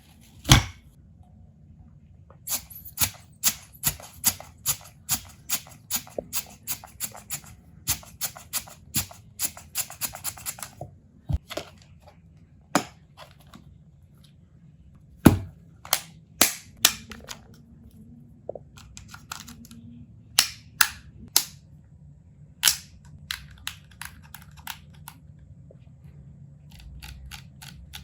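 A long series of sharp, dry clicks and snaps. A loud one comes about half a second in, then a steady run of about two a second, another loud snap about halfway, then scattered, fainter clicks.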